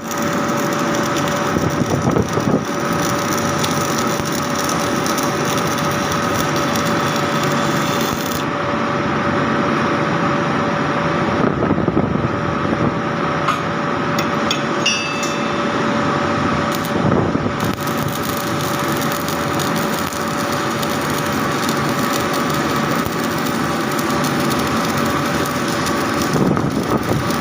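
Arc welding in progress: a steady hiss with a constant hum, and no break in the sound.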